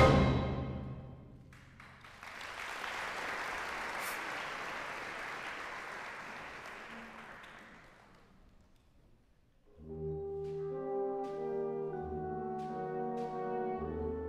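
Symphonic wind band: a loud full-band chord cuts off and rings in the hall, then a cymbal roll swells and slowly fades. After a brief silence the brass come in with soft, sustained chords, with light percussion strokes a few times.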